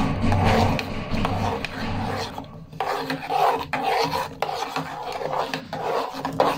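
Metal spoon scraping round the inside of a metal pot, stirring a milk and egg mixture in repeated strokes, with a short lull partway through and a few sharp knocks of the spoon against the pot.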